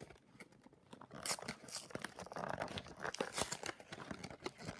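Plastic shrink wrap being torn and crinkled off a Yu-Gi-Oh! structure deck box, in irregular crackling rips that start about a second in.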